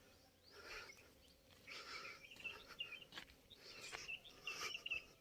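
Faint birds chirping in short repeated notes, with a couple of light clicks.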